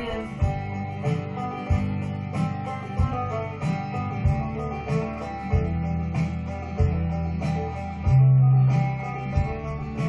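Background acoustic guitar music with an even, rhythmic pulse. About eight seconds in, a louder low hum sounds for under a second.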